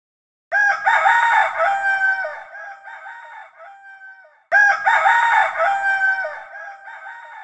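A rooster crowing twice, about four seconds apart, each crow trailing off in a fading echo.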